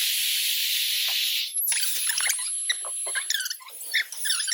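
Small electric motor of a compact cordless car vacuum/inflator running with a steady airy hiss and a thin high whine, cutting off about a second and a half in. A string of short, high squeaks and chirps follows.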